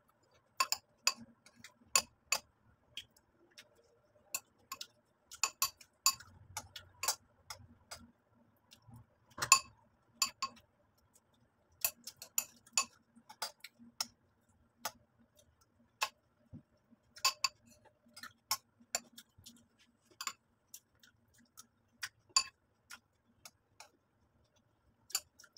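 A spoon clinking against a ceramic bowl of cornflakes and milk: many short, sharp clicks at irregular intervals, some louder than others.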